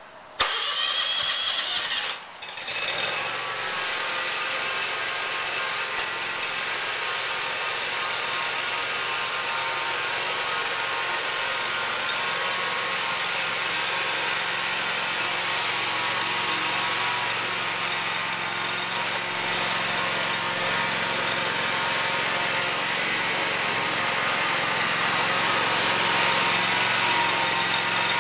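Gravely zero-turn riding mower's engine starting up at the beginning, dipping briefly about two seconds in, then running steadily as the mower is driven down the loading ramp.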